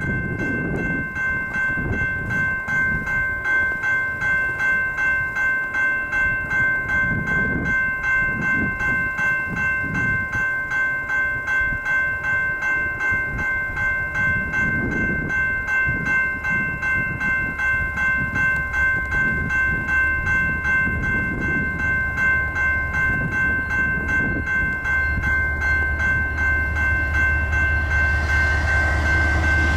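Railroad crossing bell ringing in a quick, even rhythm while a slow Canadian Pacific intermodal train rolls over the crossing with a low, uneven rumble of wheels and cars. Near the end a diesel locomotive's low engine drone grows louder as the mid-train distributed-power unit approaches.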